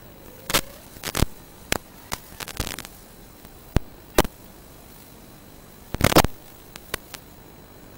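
Radio static from an analog FPV video link: a steady hiss broken by about a dozen short, irregular crackles, the loudest about six seconds in.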